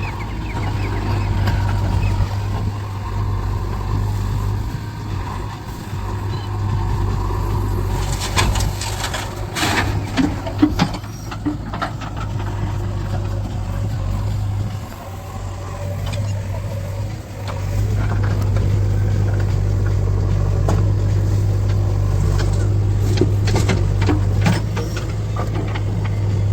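Heavy diesel engine of construction machinery running steadily, getting louder about two-thirds of the way through, with clusters of sharp knocks a third of the way in and again near the end.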